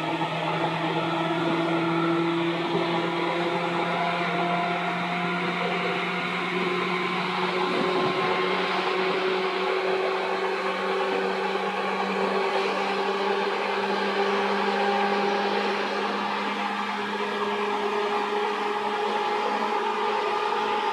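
Seibu 2000 series electric commuter train running, heard from inside the car: a steady traction-motor hum over wheel and rail noise, its pitch slowly rising as the train gathers speed.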